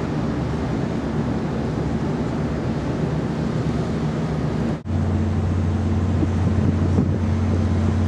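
Steady low engine-like drone with wind noise on the microphone. It drops out for a moment about five seconds in, then comes back as a louder, steadier low hum.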